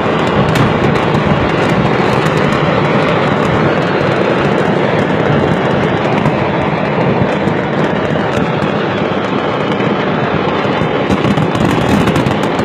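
Stored fireworks going off in a continuous rapid crackle and popping as a fireworks market burns, heard from inside a car over a steady rumble.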